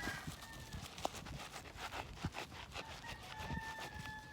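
Toothbrush scrubbing a wet leather Air Force 1 sneaker: a run of quick, irregular brush strokes. A drawn-out animal call sounds in the background about three seconds in.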